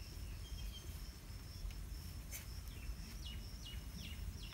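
Rural outdoor ambience: a steady high-pitched insect note, with a bird giving several short falling chirps in the second half, over a low rumble.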